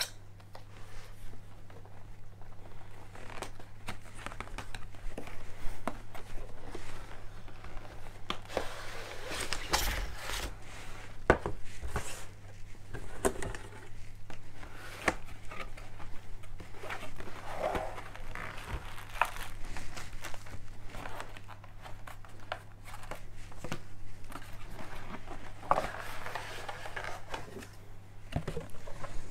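Cardboard and plastic packaging rustling and crinkling as a boxed microphone is unpacked, with many short knocks and scrapes of boxes and foam inserts against a wooden table, over a steady low hum.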